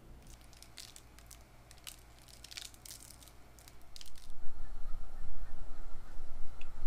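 Faint scattered snips and taps as steaks are trimmed and seasoned on a cutting board. About four seconds in, a much louder steady noise comes from the stovetop, where oil is heating in a frying pan.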